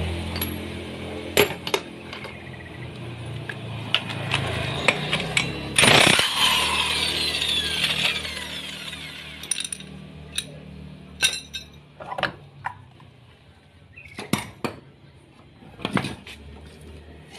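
A power tool, likely an impact wrench, rattles loudly for about two seconds about six seconds in while the Yamaha NMAX 155's CVT pulleys and belt are being taken off. Sharp metal clinks and knocks of the parts being handled come before and after it, over a faint steady low hum.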